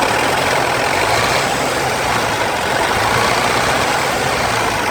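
Hyundai H-1 Starex 2.5-litre turbodiesel engine running steadily with the throttle opened, carrying the knock of a crankshaft pulley that has worked loose on its bolt and wallowed out its key.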